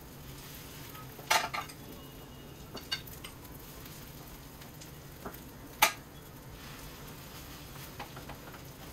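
Potato discs shallow-frying in oil on a tawa, a light steady sizzle, with sharp metal clinks of a spatula against the griddle: a quick cluster about a second and a half in, a few single clinks, and the loudest one a little past the middle.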